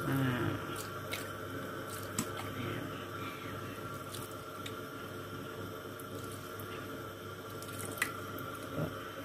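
Vinegar pouring from a plastic bottle onto fish and vegetables in a cooking pot: a steady trickle and splash, with a few light clicks, the sharpest near the end.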